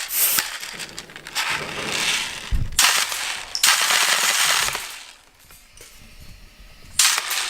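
Homemade compressed-air BB machine gun, a 500 ml bottle fed by a compressor gun with a copper tube through the cap, firing in several bursts, each a rush of escaping air; the longest lasts about two seconds around the middle, and a short one comes near the end.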